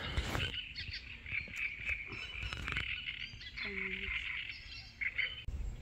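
Wildlife in a lakeside reedbed: continuous high chirping and trilling, with a short low croak about four seconds in.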